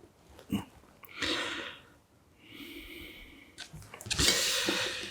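Breaths close to the microphone: a small click, then three breathy exhales, the last one the loudest and sharpest.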